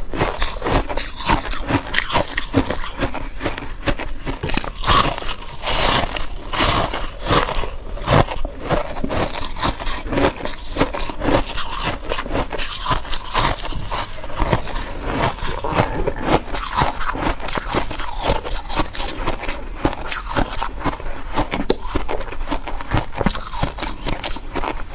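Freezer frost being bitten and chewed close to a clip-on microphone: a continuous run of small crisp crunches and crackles at an irregular pace.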